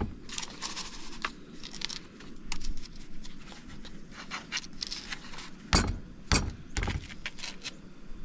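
Clinks, taps and scrapes of kitchen utensils and cookware on a wooden table, with three sharp knocks about half a second apart around six seconds in.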